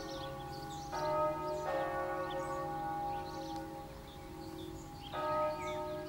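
Church bells ringing a peal: overlapping, long-ringing bell tones, with fresh strikes about a second in, near two seconds in and again about five seconds in. Small birds chirp high above the bells.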